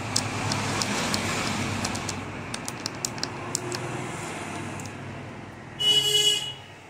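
Small scratching clicks of a razor blade scraping a track clean on an LCD panel's flex cable, over background traffic noise that swells and fades. A brief louder sound with a steady tone comes near the end.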